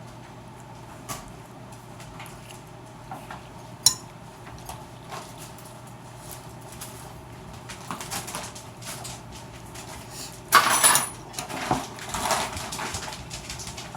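Eating utensil clinking and scraping against a dish while mac and cheese is eaten. It starts as scattered light clicks with one sharp tick, then turns busier from about eight seconds in, with the loudest clatter around ten and a half seconds.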